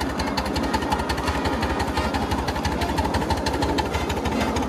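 A 1/8-scale live steam Pacific (4-6-2) locomotive working hard up a 3% grade, its exhaust chuffing in a quick, even beat.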